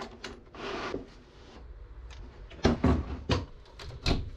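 Handling of a hard plastic tool case and an angle grinder on a wooden workbench: the case's latches clicking open and the grinder being lifted out and set down, a string of sharp clacks and knocks with a short scraping rustle early on. The loudest knocks come a little under three seconds in.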